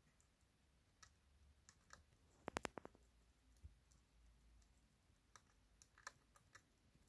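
Hamster gnawing a seed held in its front paws: small crunching clicks, with a quick run of about four sharp cracks about two and a half seconds in and a scatter of smaller clicks near the end.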